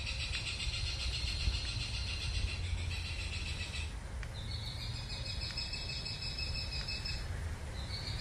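Insects trilling in high-pitched pulsing choruses. One stops about four seconds in, and a slightly lower one continues, breaking off briefly near the end. A low steady rumble runs underneath.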